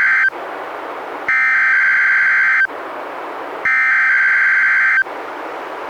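NOAA Weather Radio SAME alert header for a Required Weekly Test: harsh buzzing digital data tones in repeated bursts of about a second and a half, the tail of one burst and then two full bursts, with radio hiss in the gaps between them.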